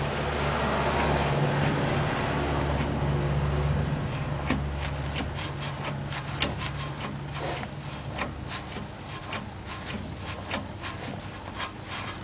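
A low, steady mechanical hum that fades away over the first half, followed by scattered clicks and rubbing of handling close to the microphone.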